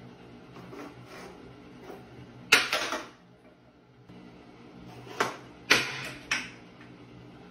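Sharp knocks and clatters of small pots on a tiled ledge as a cat paws at them: one loud clatter about a third of the way in, then three more about half a second apart past the middle, over a faint steady low hum.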